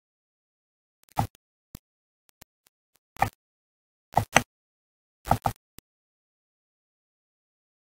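Computer mouse clicking: a single click about a second in, another about three seconds in, then two quick double-clicks around four and five seconds in.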